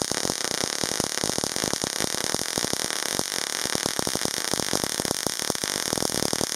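MIG/MAG welding arc on 2 mm steel with 0.8 mm wire, giving off a steady, dense crackle of short-circuit transfer. This is the second test bead, run with the voltage and wire speed raised to widen a bead that had been too narrow and too thick.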